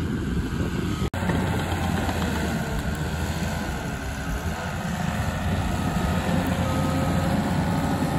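Caterpillar D4G crawler dozer's diesel engine running steadily as its blade pushes dirt, stumps and brush into a pile. The sound drops out for an instant about a second in.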